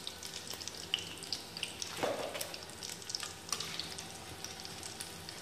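Hot oil sizzling and crackling as aloo bondas (gram-flour-battered potato balls) deep-fry in a pan, with a single metal clink about two seconds in.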